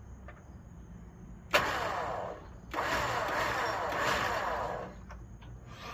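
Electric winch motor and gear train run in two short bursts, one brief and one about two seconds long, each starting abruptly: the drum is being jogged round with the remote.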